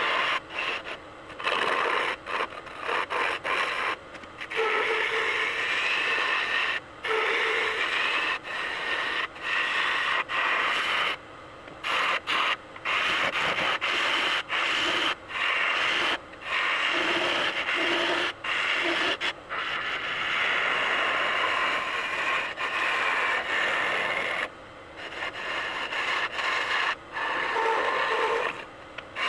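Walnut-and-epoxy vase blank spinning on a wood lathe while it is shaped by hand: a rough, hissing scrape against the turning wood, broken by many short gaps.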